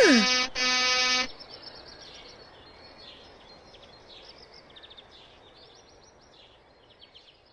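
A short cartoon voice exclamation, then a one-second horn honk, followed by soft background birdsong with light chirps over a quiet outdoor ambience.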